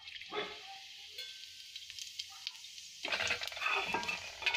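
Cumin seeds frying in hot oil in a kadhai: a steady sizzle with small pops, growing louder about three seconds in.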